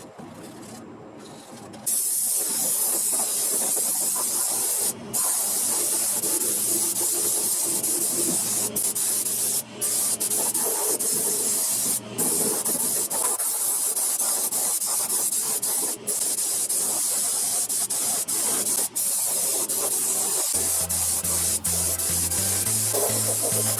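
Spraying hiss that starts sharply about two seconds in and keeps going in long passes, broken by brief pauses.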